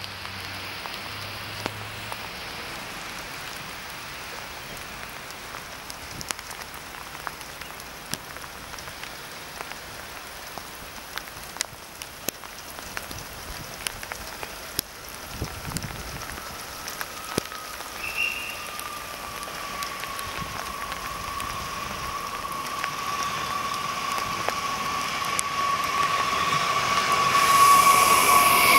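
Steady rain falling on the platform and tracks, with scattered sharp drop clicks. From about halfway in, an arriving electric TER train comes in as a whine that drops slowly in pitch and grows louder. The train rolls into the platform near the end, where its sound is loudest.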